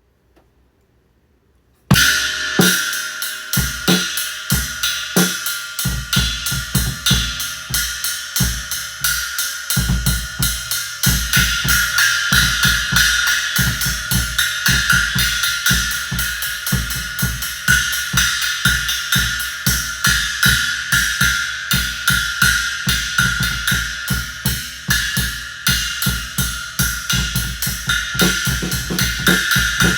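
A drum kit starts playing about two seconds in and keeps going: kick and snare under a constant wash of cymbal, led by a 14-inch Zildjian Total series China cymbal. Raw, unprocessed sound through a phone microphone.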